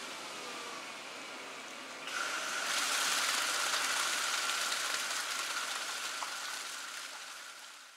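A jet of water sprays across an oriental rug lying in a wash tray over a vacuum grate. It starts about two seconds in over a steady hiss, growing into a loud, dense spray with a steady whine under it, and fades near the end.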